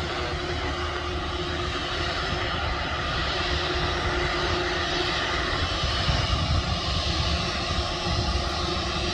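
Airbus A330neo's Rolls-Royce Trent 7000 turbofans running at low taxi power as the airliner rolls along the taxiway: a steady jet rumble and hiss with a faint steady tone.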